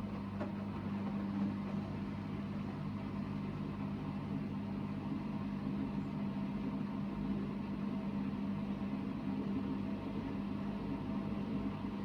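Hoover VHD 9163 ZI front-loading washing machine in its final spin, the drum turning at a steady speed with an even motor hum.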